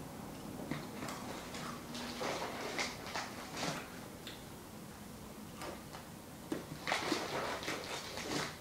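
Someone eating a snack: chewing and the crinkle of a snack wrapper being handled, as short scattered crackles with quieter stretches between.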